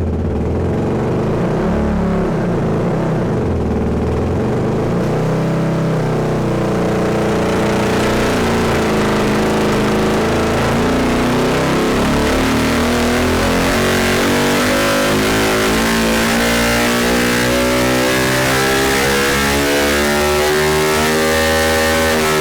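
Beta 480 single-cylinder four-stroke dirt bike engine making a dyno pull. It runs in one long, loud sweep, its pitch climbing steadily from low revs to high revs.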